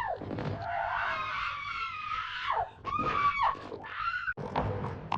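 People screaming in panic, several high wavering cries that break off into falling wails, over a steady low rumble of noise.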